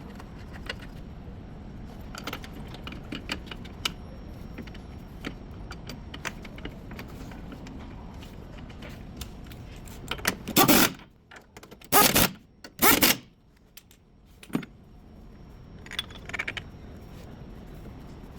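Metal tools and parts clinking and clattering during work on a car's engine mount: scattered sharp metallic clicks, then three short loud noisy blasts a little past the middle, about a second apart.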